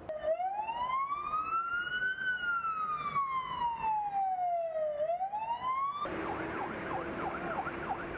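Emergency vehicle siren in a slow wail, rising over about two seconds, falling over about three, then starting to rise again. About six seconds in it changes abruptly to a fast yelp, several sweeps a second, over louder vehicle noise.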